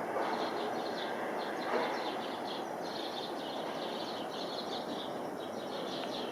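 Small birds chirping rapidly and continuously, over a steady outdoor background rumble.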